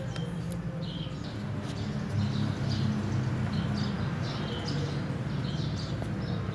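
Small birds chirping in short, scattered calls, over a steady low hum.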